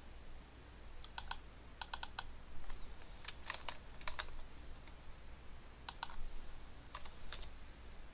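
Typing on a computer keyboard: short bursts of a few keystrokes with pauses between them.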